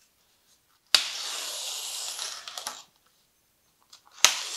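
Snap-off utility knife blade slicing through a polystyrene foam (thermocol) plate: two scraping cutting strokes, the first starting sharply about a second in and lasting about two seconds, the second starting sharply near the end.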